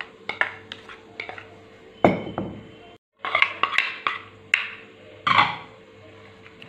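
Sliced vegetables tipped from a small bowl into a larger bowl: a series of light clicks and knocks as the bowls and vegetables touch, with one heavier thud about two seconds in.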